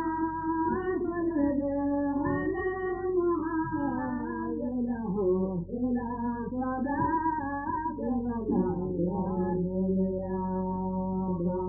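A devotional praise chant sung slowly, with long held notes that slide from one pitch to the next. There is no beat or percussion, and a low steady hum sits underneath.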